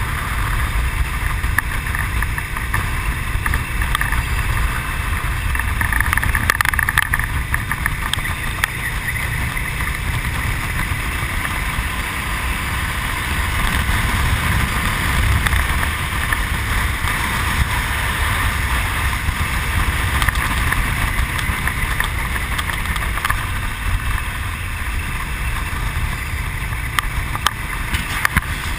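Steady rush of wind on the microphone of a moving Honda VTR1000 motorcycle, with the bike's V-twin engine running underneath as it cruises.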